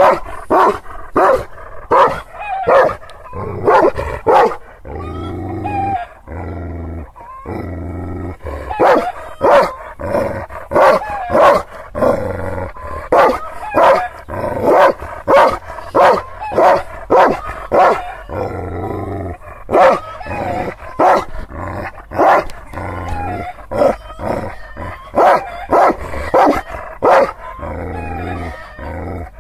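A large Aksaray Malaklı shepherd dog barking: a long run of deep, repeated barks, about one to two a second, with a couple of short pauses. They are angry guarding barks, a warning aimed at strangers it has never seen.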